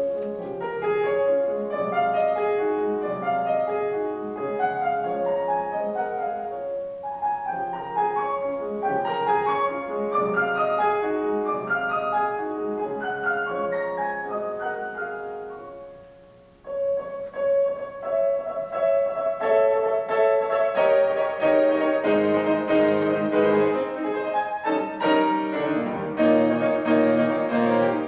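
Solo classical piano played on a Steinway concert grand: running passagework that tapers off and breaks briefly just past halfway, then resumes louder with dense repeated chords.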